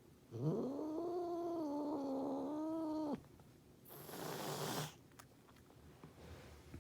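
An angry domestic cat giving one long, low, wavering growl-yowl of about three seconds, then a hiss of about a second: a defensive threat display.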